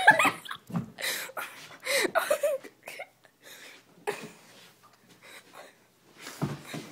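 Short indistinct vocal sounds (voice, breath or a cough) mixed with rustling and knocking noises of bodies and a handheld phone moving about; no clear words.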